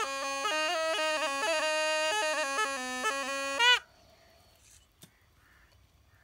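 Snake charmer's been (pungi), a gourd pipe with reeds, playing a fast reedy melody of quick, wavering notes that ends with a short loud upward slide a little under four seconds in. After that it is near silence, with one faint tick.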